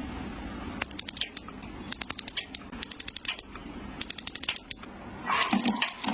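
Rapid sharp mechanical clicking in several quick bursts, then a steady rushing noise starts about five seconds in.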